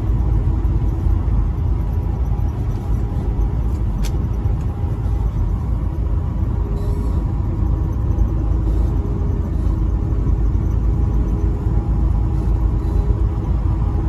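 Semi-truck cruising at highway speed, heard from inside the cab: a steady low rumble of engine drone and road noise, with a faint click about four seconds in.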